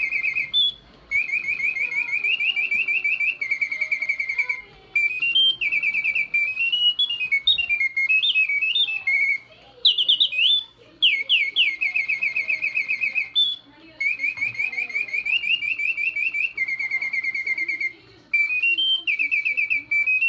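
Antique French clockwork singing-bird automaton, its bellows-driven whistle warbling in fast trills. The phrases are broken by short pauses about every three to four seconds, and some passages glide up and down in pitch.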